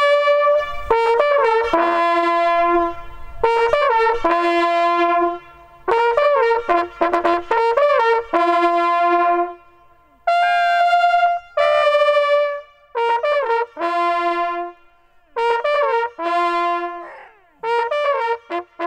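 Hunting horn blowing a signal in a series of short phrases with brief pauses, its notes jumping between the horn's few natural tones. It is the traditional horn salute for a freshly shot red deer stag.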